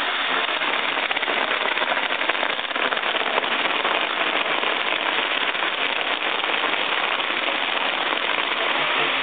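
Ground-level fireworks, spinning wheels and spark fountains, hissing and crackling in one continuous dense spray of sparks.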